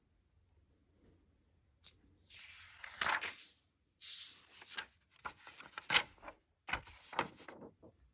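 Laptop packaging being handled by hand: four short bursts of rustling and rubbing with a few sharp clicks, each about a second long, in the second half.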